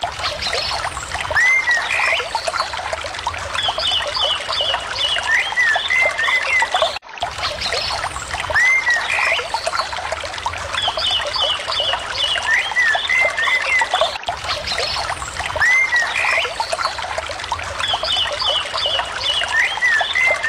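A shallow stream running and trickling over stones, with small birds chirping in short, quick calls. The same stretch of about seven seconds repeats three times, as a looped ambience.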